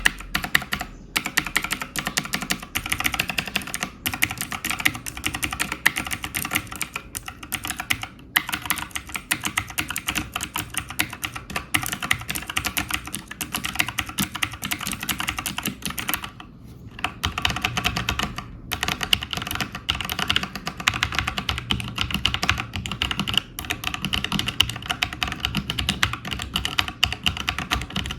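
Continuous typing on a mechanical keyboard fitted with Razer Orange Tactile Gen-3 switches, which are tactile but have no click: a rapid, dense run of keystrokes with a brief pause about sixteen seconds in.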